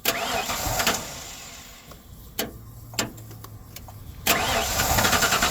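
1996 Ford F-250's 5.8-litre V8 being restarted: a first try lasting about a second, two sharp clicks, then about four seconds in the engine catches and keeps running with an even pulse. The truck has a bad fuel pump and is being kept running on starting fluid.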